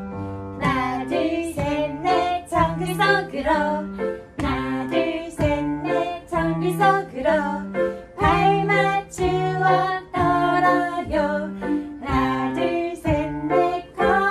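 Women singing an upbeat children's song over a bright accompaniment with a steady marching beat.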